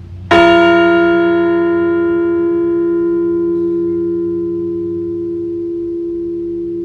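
Liberty Bell replica struck once, then ringing on in a long, slowly fading hum: a single memorial toll for a deceased veteran.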